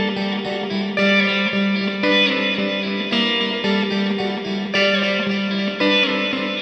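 Background music played on electric guitar with effects, a new chord or note struck about once a second.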